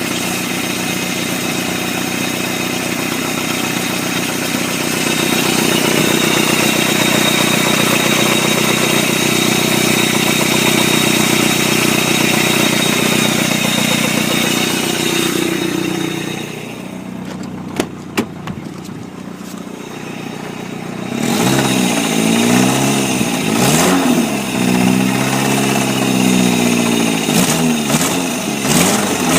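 1999 Chevy S10's 2.2-litre four-cylinder engine, which the owner says has a rod knock, running at a steady raised speed. Just past halfway it drops back and two sharp clicks follow; for the last third it is revved up and down repeatedly.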